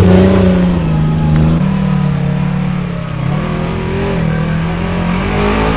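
Off-road vehicle engine revving under load, its pitch rising and falling several times as the throttle is worked.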